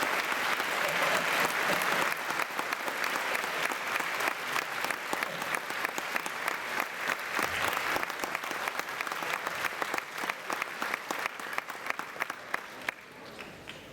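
Audience applauding: dense clapping that gradually thins to scattered individual claps and dies away near the end.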